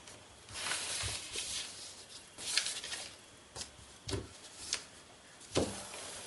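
Sheet of silver/gold kraft paper rustling and crinkling as it is folded over along one edge and pressed flat into a crease, in a series of short irregular rustles, the loudest one a little before the end.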